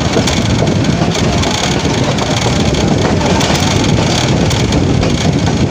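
Moving passenger train heard from an open door or window: a steady loud rumble of the wheels on the rails, mixed with wind noise.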